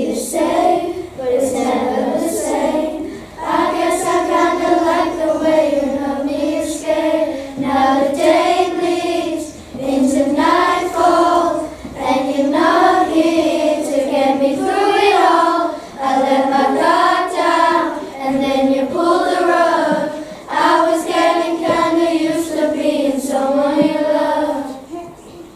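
A group of children singing a melody together in unison, in phrases of a few seconds each, with the singing stopping just before the end.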